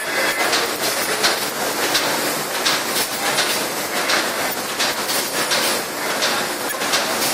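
Plastic bag-making machines running: a steady mechanical clatter of repeated knocks, a few a second, over a constant whir.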